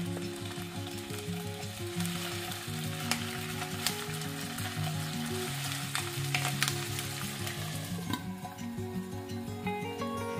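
Raw chicken drumsticks sizzling and crackling in hot oil in a non-stick frying pan, with a few sharp pops of spitting oil. The sizzle fades about eight seconds in, leaving soft background music.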